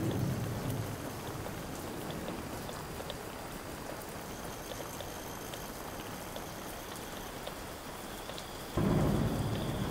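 Field recording of steady rain: an even hiss with scattered small drip ticks. A deep rumble fades out in the first second, and another comes in suddenly about nine seconds in.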